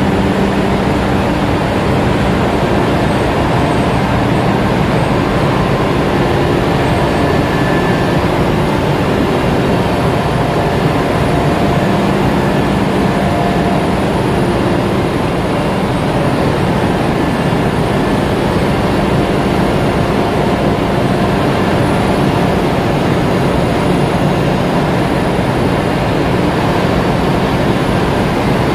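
Container ship engine-room machinery running normally at sea: a loud, even din with a steady low hum and no breaks.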